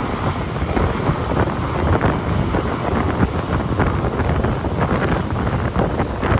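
Strong wind buffeting a phone's microphone: a dense rushing hiss with an irregular low rumble and flutter as the gusts hit.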